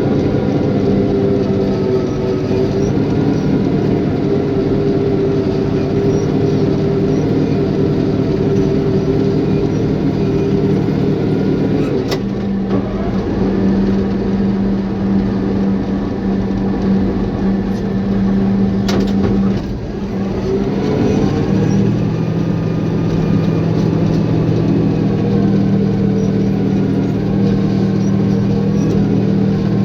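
Caterpillar bulldozer's diesel engine running steadily under work, its pitch shifting about twelve seconds in and again about twenty seconds in, with two sharp clicks along the way.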